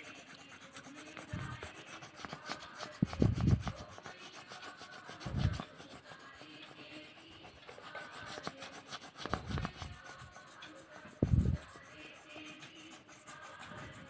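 Pen tip scratching across paper while writing on a page of a drawing book, with about five dull low bumps from the hand and book being handled.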